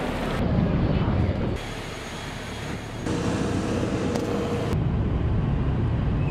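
Turboprop airliner noise in short clips cut together, changing abruptly every second or two: engine noise on the apron with a steady whine in one stretch, then the engine drone heard from the cabin in flight.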